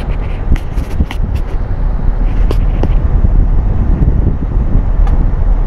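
Outdoor unit of a split air conditioner running, its condenser fan spinning at full speed on a newly fitted capacitor: the fault of the fan turning too slowly is cured. The strong stream of hot air off the fan blows across the microphone as a loud, gusty rumble.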